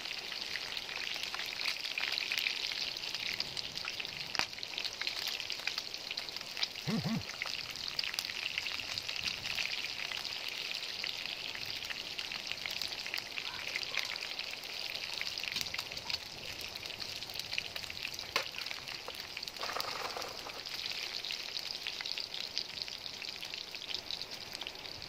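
Pieces of pig offal frying in oil in a pan: a steady sizzle with frequent crackles and pops.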